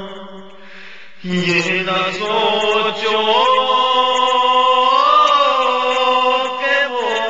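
A man singing a naat, an Urdu devotional poem, in a chanting style. His voice dips briefly, comes back in about a second in, and holds one long note that climbs and wavers with ornamented turns.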